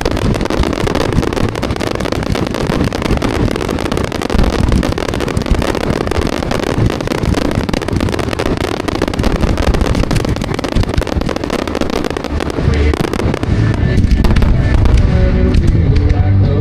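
Fireworks crackling and popping in a dense, rapid stream over background music; the music comes through more strongly in the last few seconds.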